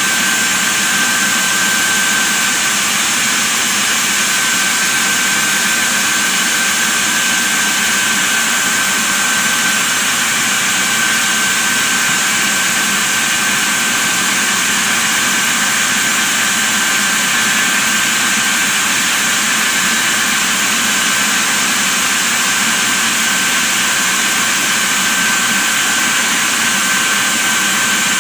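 Sawmill band saw headrig running as it splits a large log lengthwise: a constant loud hiss with a steady high whine.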